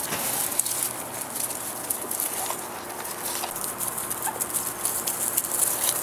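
Rustling and scuffling in grass around German shepherd puppies, with a few faint, short, high squeaks in the middle.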